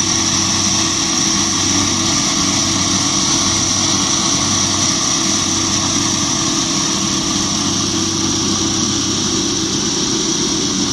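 Schwamborn BEF 320 EX concrete scarifier (Betonfräse) running steadily: a constant machine drone with a high, steady whine over it.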